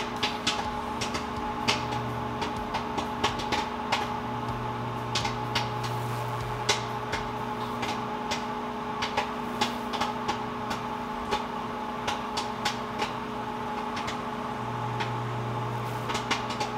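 Microwave popcorn popping in its bag inside a running microwave oven: several sharp, irregular pops a second over the microwave's steady hum, with the popping in full swing.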